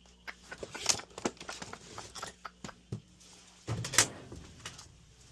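Clicks and light knocks of dryer parts being handled during a blower fan repair, with a louder clatter about four seconds in.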